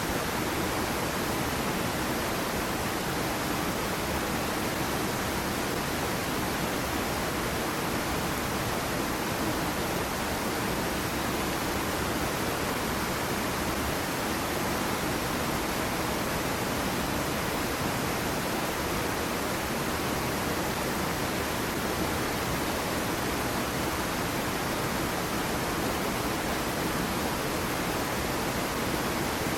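Small waterfall on a stream pouring steadily: an even, unbroken rush of falling and splashing water.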